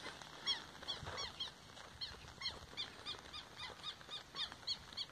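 A small bird, hidden from view, peeping: a long series of short, high calls repeated about three to four times a second.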